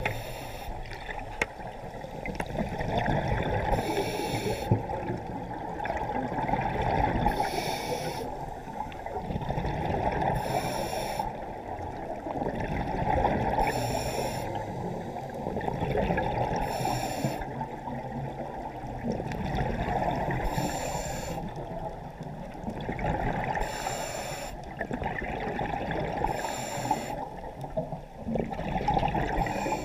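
Scuba diver breathing through a regulator underwater: a short hiss on each inhale and a rush of bubbles on each exhale, about one breath every three seconds.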